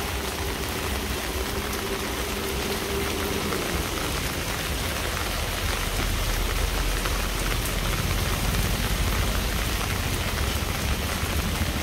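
Steady heavy rain falling and spattering on hard surfaces, a dense even hiss, with a low rumble underneath that grows louder in the second half.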